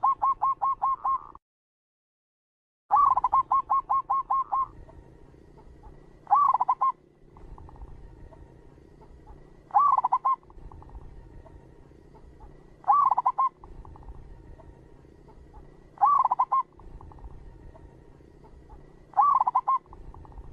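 Zebra dove (perkutut) cooing: a rapid run of about eight short, staccato coos, then after a pause of dead silence another run just as long. After that come short bursts of a few coos about every three seconds.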